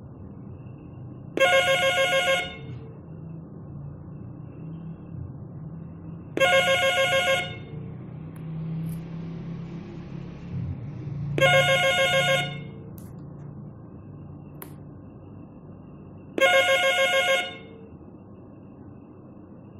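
Home landline telephone ringing: four rings, each about a second long, one every five seconds, with a faint low rumble between them.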